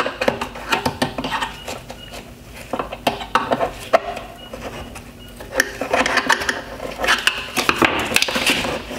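Hard plastic creaking, clicking and rattling as a headlight's LED high beam reflector is pulled and worked loose from its plastic push-on tabs inside the housing, with irregular sharp clicks throughout and denser creaking in the second half.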